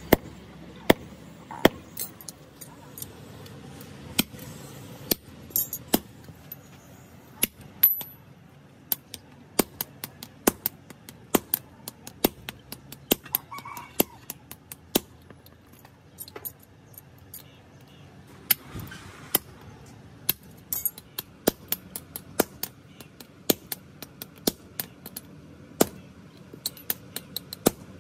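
Hammer blows on a blacksmith's anvil, forging hot truck leaf-spring steel into an axe head. The sharp metal strikes come at an uneven pace, about one or two a second.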